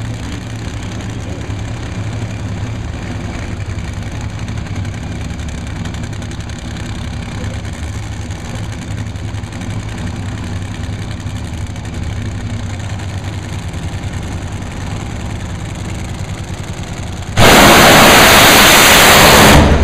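Two supercharged nitromethane Funny Cars idling at the starting line with a steady low rumble. About seventeen seconds in they launch: a sudden, overwhelmingly loud blast that overloads the recording for about two seconds, then falls away as the cars leave.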